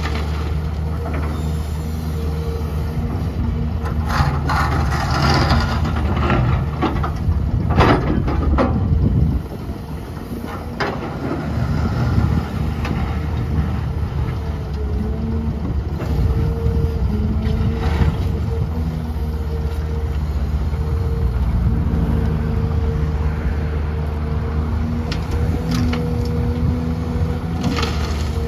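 XCMG XE265CT excavator's diesel engine running steadily under load. There is a rushing, scraping clatter about four to six seconds in and a loud crash near eight seconds. The engine level drops just after nine seconds, and scattered knocks follow.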